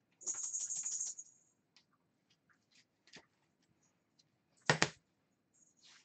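A sleeved trading card slid into a rigid plastic top loader, a scraping rustle in the first second, then light ticks of plastic and card handling. About 4.8 seconds in comes a sharp double tap on the table, the loudest sound, likely the top loader being set down.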